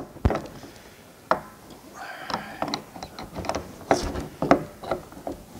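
A metal wrench turning a brass spigot into the threaded fitting of a plastic rain barrel: a series of sharp, irregularly spaced clicks and knocks as the wrench bites and is reset on the spigot.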